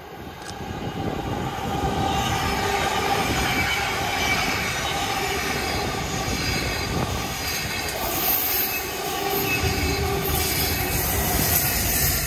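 A train passing, its rolling rumble building over the first two seconds and then running loud and steady, with faint steady whining tones above it.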